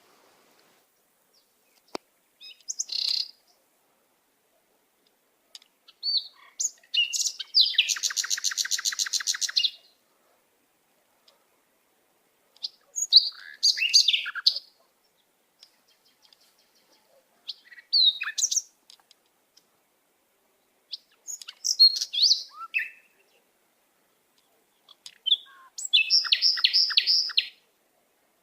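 A songbird singing in separate high phrases every few seconds, with silence between. The phrases mix short chirps and whistled glides with rapid trills; the longest trill runs about two seconds, starting some eight seconds in.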